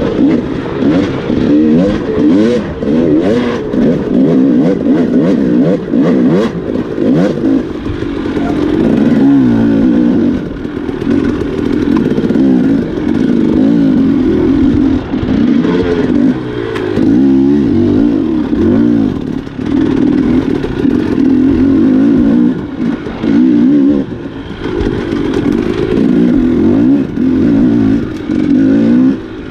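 Off-road motorcycle engine riding an enduro trail, its revs rising and falling constantly with the throttle. Some rattles and knocks come through in the first several seconds.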